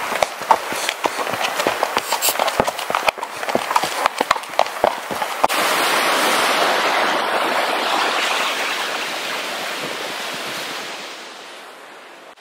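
Horse hooves clopping along the trail, many irregular sharp knocks. About five seconds in they give way abruptly to the steady rush of a fast mountain creek, which fades over the last two seconds.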